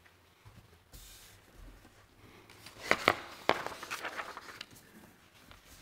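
A person walking past in a quiet room: a few footsteps and sharp knocks, the loudest three close together about three seconds in, with soft rustling.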